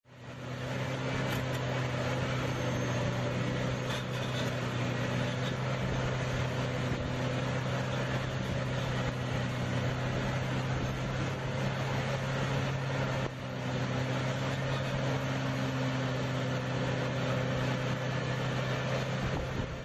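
Heavy machinery running steadily: a constant low mechanical hum over a broad, even noise, with a slight change just after the middle.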